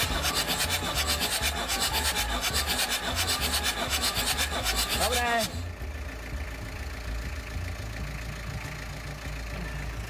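Mercedes OM603 straight-six diesel cranked over on its starter with the glow plugs removed, for a compression test on cylinder 1: a fast regular rasping beat that stops sharply about five and a half seconds in.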